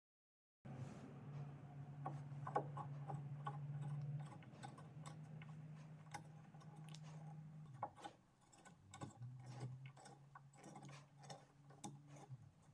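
Threaded metal inserts being turned into a wooden block with a hex key: quiet irregular ticks and creaks as the insert threads bite into the wood. Underneath is a low steady hum that breaks off twice.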